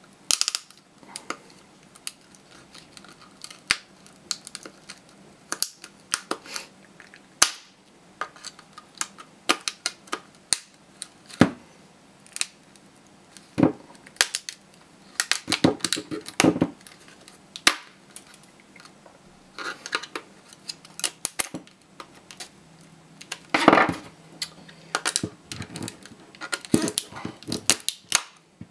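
Plastic laptop battery case being pried apart with a small screwdriver, and near the end with pliers. The tight, glued case gives irregular sharp cracks and snaps as its seams and clips give way, with clicks and scrapes from the tool.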